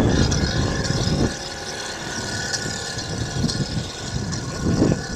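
Small engine of a vintage Power-Ski water craft running steadily as it moves off, a constant high drone, with a heavier low rumble in the first second or so.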